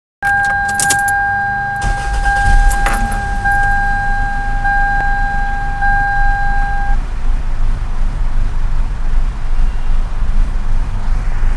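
Toyota 2.2 L four-cylinder engine idling roughly with a diesel-like clatter, the sign of a fault the owner cannot yet trace in the freshly rebuilt engine. Keys jingle at the start, and a warning chime sounds in repeated long tones until about seven seconds in.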